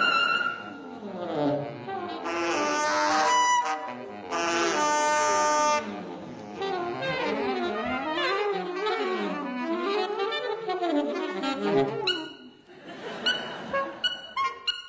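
A saxophone ensemble playing together. The group holds long chords, then plays quick runs that climb and fall, and ends on short detached notes.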